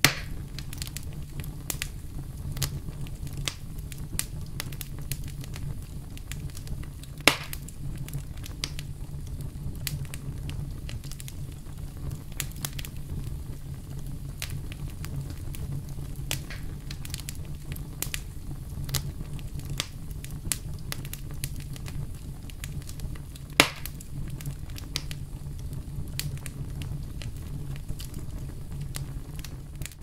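Wood campfire of split logs crackling, with frequent small snaps and two louder pops, one about seven seconds in and one some sixteen seconds later, over a low steady rumble of the flames.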